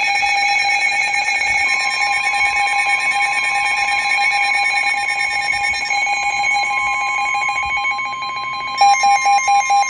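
Electronic emergency-alert tones announcing a Special Marine Warning: a steady buzzing alarm tone, joined under it about two seconds in by a second, purer steady tone. About nine seconds in, the alarm switches to loud rapid beeps, about four a second.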